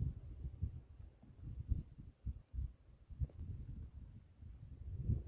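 Insects, crickets by their kind, chirring in a steady, fast-pulsing high trill, over an uneven low rumble like wind or handling on the microphone.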